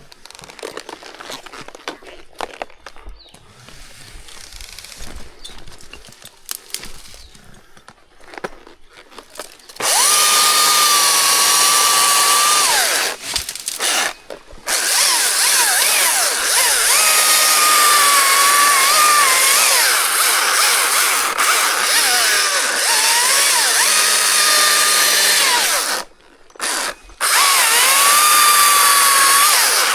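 Quiet rustling and small knocks, then about ten seconds in a chainsaw starts cutting wood at full throttle. Its pitch sags and recovers as the chain bites, and it breaks off briefly twice.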